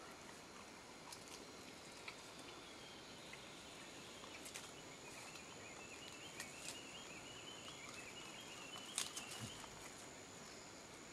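Faint tropical forest ambience: a steady high insect whine, a bird giving a series of short notes that climb gradually in pitch, and a few sharp clicks or snaps, the loudest about nine seconds in.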